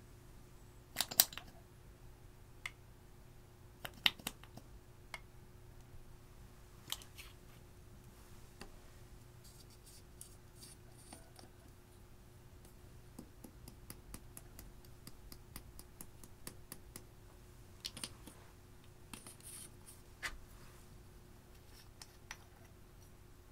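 Scattered sharp clicks and taps of small makeup bottles and jars being handled and opened over glass dishes, the loudest about a second in and again about four seconds in. A faint steady hum runs underneath.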